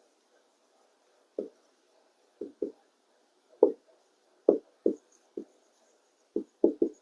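Handwriting: about ten short, dull, irregular taps and strokes of a writing implement on a hard surface, some coming singly and some in quick pairs and threes.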